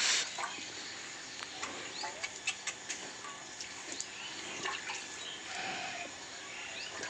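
Hand-milking a water buffalo: milk squirts into a steel pail in short, irregular strokes, after a brief louder noise at the very start. Small birds chirp in the background.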